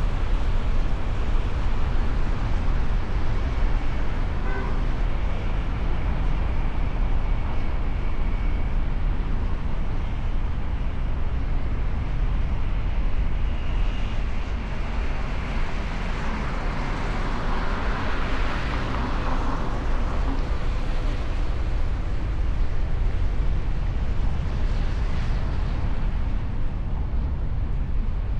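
Steady road traffic noise with a heavy low rumble of vehicles in motion. A brighter hiss swells for a few seconds a little past the middle, then settles again.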